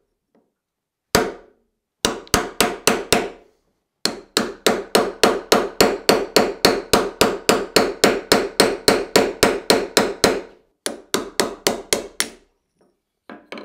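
A heavy steel punch is struck again and again with a hammer, driving the old wooden handle stub out of the eye of a ball peen hammer head. There is one blow, a quick run of five, then a long steady run of about four blows a second, and a last run of six. Each blow rings briefly.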